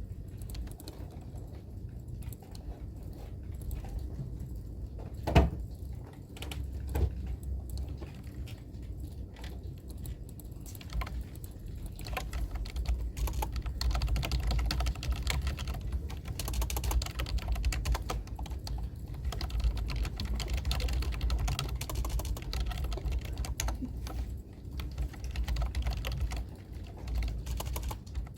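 Typing on a computer keyboard: scattered key clicks at first, with one louder knock about five seconds in, then steady fast typing from about twelve seconds on.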